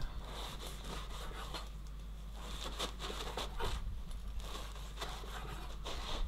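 Rustling and scraping of frozen chopped garden herbs being sprinkled over the cooked rabbit: a string of short, scratchy rubbing noises.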